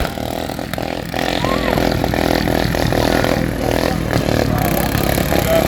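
Racing lawnmower engines running together, their revs rising and falling as the mowers race.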